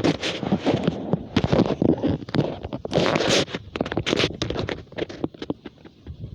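Gusty wind buffeting and rustling against the microphone: a dense, irregular crackle and scrape with no steady tone.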